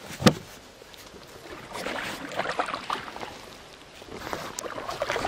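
Canoe paddle strokes in calm water: the blade dipping and water splashing and dripping off it, in two spells, with one sharp knock just after the start.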